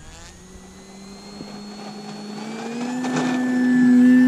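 E-flite Carbon-Z Cessna 150 RC plane's electric motor and propeller at takeoff power during the takeoff roll. The whine rises slightly in pitch and grows steadily louder as the plane comes closer, loudest as it passes near the end.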